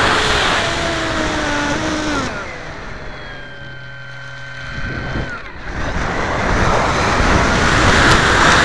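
Onboard audio of a Multiplex FunJet RC jet's electric pusher motor: its whine slides down in pitch and fades, leaving a softer steady whine for a few seconds, then a loud rush of wind over the airframe builds as the plane noses down into a dive.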